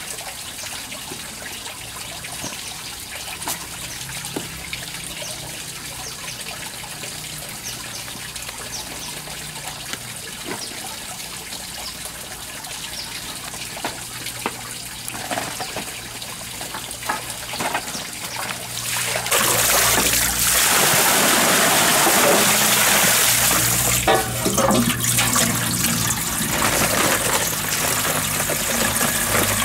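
Water trickling from a hose into a metal basin, a soft steady run that becomes a much louder, closer rush about two-thirds of the way through, with a few clicks and knocks near the end.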